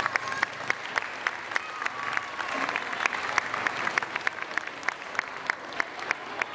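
Scattered audience applause, the individual claps standing out, as the choir bows after a song.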